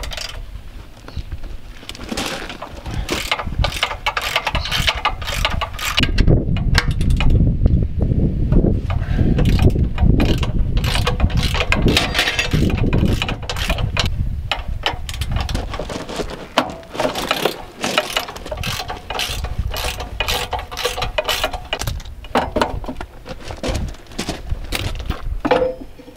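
Hand tools on metal: a ratchet wrench clicking and metal parts clanking while the trailer tongue jack's mounting bolts are taken out, with many irregular clicks and knocks.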